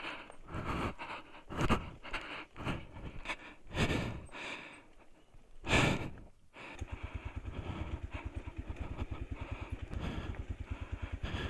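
A rider's heavy, hard breathing, one breath about every second. About two-thirds of the way in, a motorcycle engine is heard idling with an even, rapid pulse.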